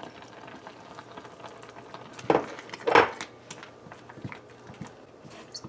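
A spoon stirring tamarind sauce in a pot, with small scraping clicks throughout and two louder knocks about two and three seconds in.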